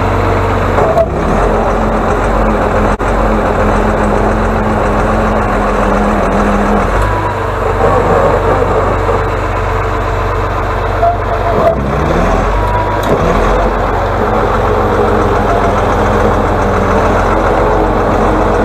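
Diesel engine of an Atlas 1602 wheeled excavator running steadily as the machine drives over snow. Its note shifts a few times with throttle and load, and a few sharp knocks come from the machine.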